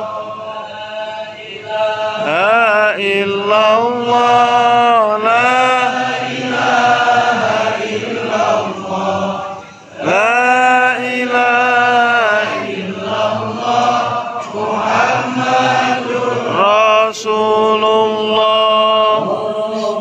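Men chanting Islamic dhikr in long, drawn-out phrases that rise and fall in pitch, with a short break about ten seconds in.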